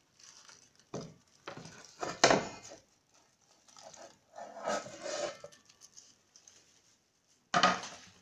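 A plate knocking and scraping against a cooking pot as cubes of butter are tipped from it onto strips of pumpkin: a series of short clatters, the loudest about two seconds in and another near the end.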